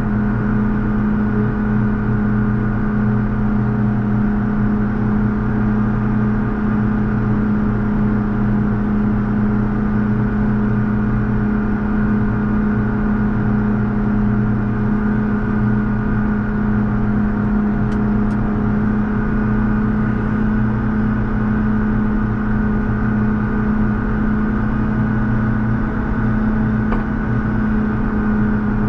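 JCB Fastrac 4220 tractor's diesel engine running steadily under load as it drives along a snowy road pushing a front snow plow, a constant even drone.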